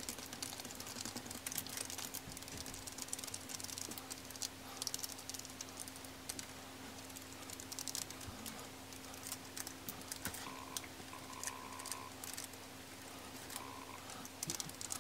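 Light, irregular crinkling and tapping of a thin plastic cereal-box liner as a wooden stick and a small applicator press and dab wet tea-bag paper against it, over a faint steady hum.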